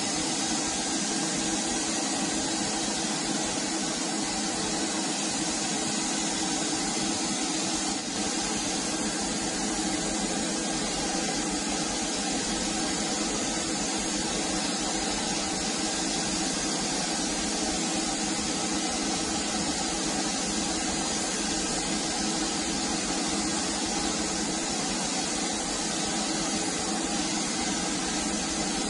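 Steady hiss of compressed air and paint mist from a gravity-feed spray gun laying on paint, unbroken throughout, with a faint steady hum underneath.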